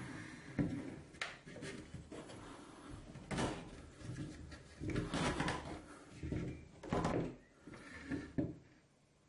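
Plywood parts of a beer-bottle tote being handled and fitted together by hand: an irregular series of wooden knocks, clatters and scrapes as the pieces slot into each other and the tote is set on the table.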